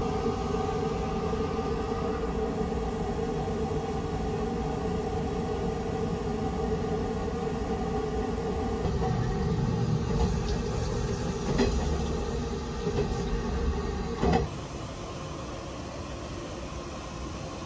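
Running noise inside a moving sleeper train: a steady rumble with a held hum, and a few sharp knocks and clicks toward the middle. About three-quarters of the way through it drops suddenly to a quieter, steady hiss.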